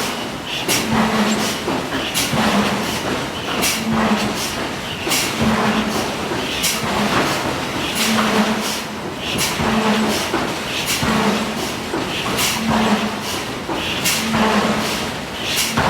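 Hydraulic forging hammer striking hot steel in a steady rhythm, a cycle of blows and a short low hum about every second and a half.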